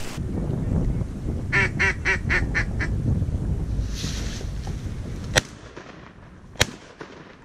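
A quick run of about six duck quacks over wind noise. Then, near the end, two shotgun shots about a second apart, fired at mallards flying over the decoys.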